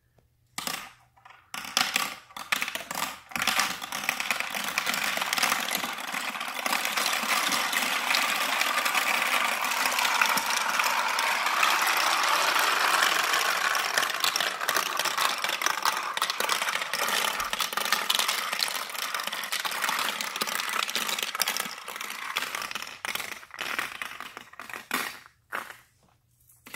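Many steel marbles rolling and clattering down through the clear plastic cubes and chutes of a Q-BA-MAZE marble run. A few clicks open it, then a dense continuous rattle that is loudest around the middle, thinning to separate clicks near the end as the last marbles drop into the bottom trays.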